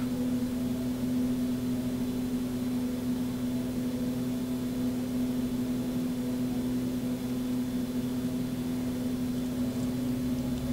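A steady low hum: one strong low tone with fainter overtones above it and a light hiss, holding level without change.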